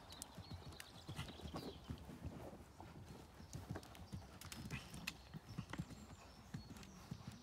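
Horse hoofbeats on an all-weather arena surface: a run of irregular, dull thuds from a horse cantering.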